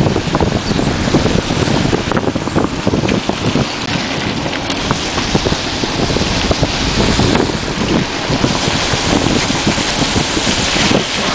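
Wind buffeting the camera's microphone: a loud, continuous rumble and rush.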